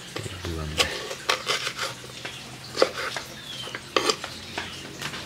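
Kitchen knife chopping pieces of banana stem on a wooden cutting board: irregular sharp knocks of the blade hitting the board, about ten of them.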